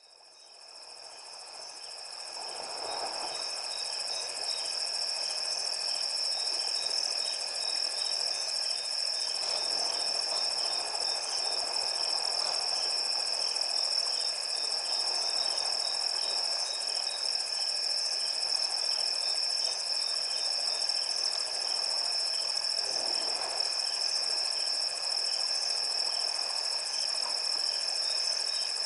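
Crickets chirring steadily at a high pitch, with the slosh and swish of water around an African elephant wading through a river, swelling every several seconds. The sound fades in over the first few seconds.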